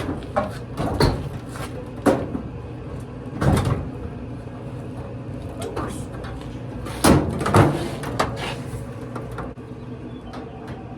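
Irregular knocks and clunks of a Samsung clothes dryer's sheet-metal panels and parts being handled during teardown, about half a dozen, the loudest about three and a half seconds in and again around seven seconds in.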